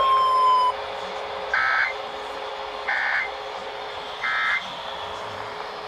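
Three short buzzing digital data bursts of an Emergency Alert System SAME signal over a weather-radio broadcast, about a second and a half apart, each lasting about a third of a second, over faint radio hiss. The bursts are the End of Message code sent three times, marking the close of the Required Monthly Test alert.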